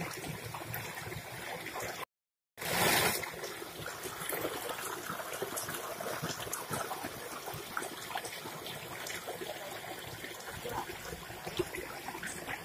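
Stream water pouring and splashing over rocks onto a woven reed fish trap, a steady rush with small splashes. It cuts out for about half a second roughly two seconds in, then comes back louder before settling.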